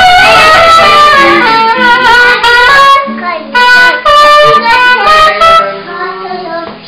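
Soprano saxophone playing a melody of held notes over guitar accompaniment. The playing stops about five and a half seconds in.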